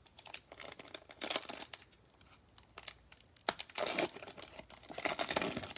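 Crinkling and tearing of a trading-card pack wrapper being ripped open and handled, in several crackly bursts, with one sharp snap about three and a half seconds in.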